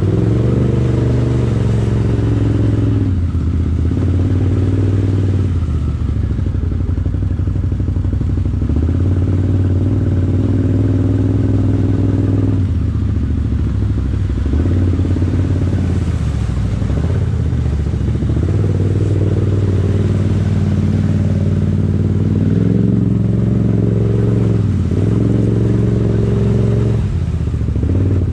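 Can-Am Outlander 850 ATV's V-twin engine running while riding a trail, its pitch rising and falling every few seconds as the throttle opens and eases off.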